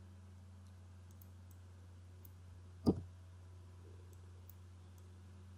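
Faint clicks of a computer mouse and keyboard during text editing, with one louder knock about three seconds in, over a steady low electrical hum.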